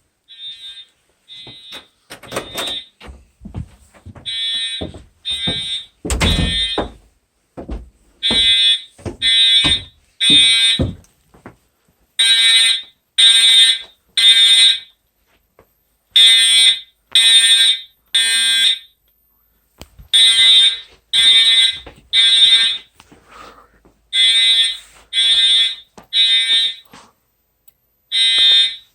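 Edwards Integrity fire alarm horn sounding in the temporal-three evacuation pattern: three half-second blasts, a pause, then three more, over and over, getting much louder over the first dozen seconds. Some thumps and knocks sound under the blasts in the first several seconds.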